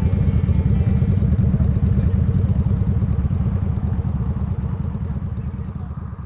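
Motorcycle engine running steadily with a fast, even exhaust pulse, fading out near the end.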